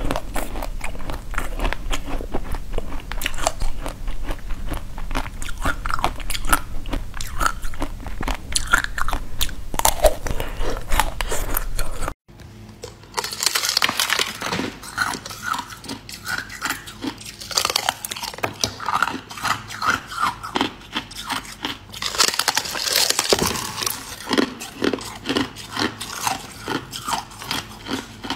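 Close-miked biting and chewing. First comes the soft eating of a watermelon-slice-shaped dessert. After a cut about twelve seconds in, it changes to crisp, snapping crunches as a large translucent brittle sheet is bitten and broken.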